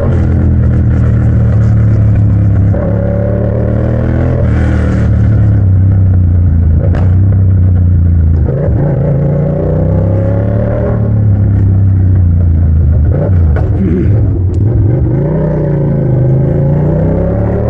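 Yamaha MT-07's parallel-twin engine running loud through a bare straight pipe while ridden, its pitch rising and dipping several times with the throttle. A couple of sharp cracks come through, about seven and fourteen seconds in.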